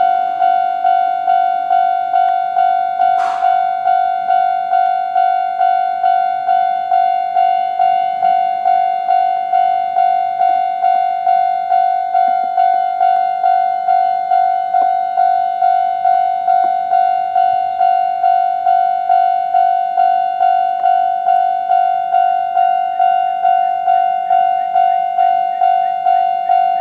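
Japanese railway level-crossing alarm, the old-type standard electronic bell tone, ringing at a fast tempo: a single pitched ding repeated evenly a little under twice a second, each stroke fading before the next. A brief hiss sounds about three seconds in.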